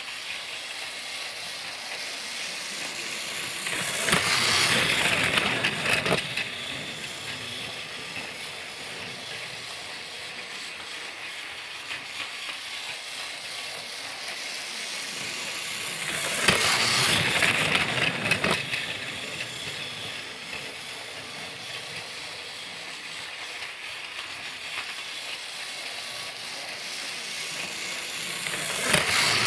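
Motorized Thomas the Tank Engine toy train running, a steady whirring, clicking gear noise that swells louder for about two seconds roughly every twelve seconds.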